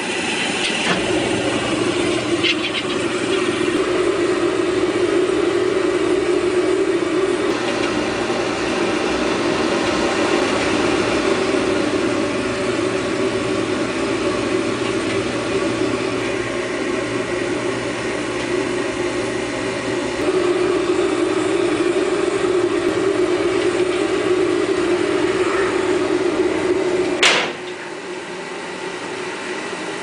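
Old oil furnace's gun-type oil burner lighting with a couple of clicks, then running with a steady roar. Near the end a sharp click and the burner flame cuts off, leaving a quieter steady hum.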